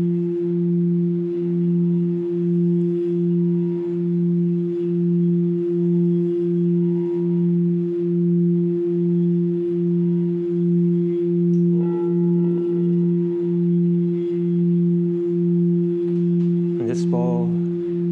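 Quartz crystal singing bowl sounding as a wand is run around its rim: a steady low tone with a second tone an octave above, swelling and fading in a slow pulse about once a second. Near the end a man's voice begins over the bowl's tone.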